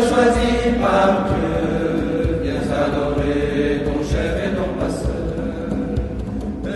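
Voices chanting a French liturgical hymn in long held notes, with a new note about a second in.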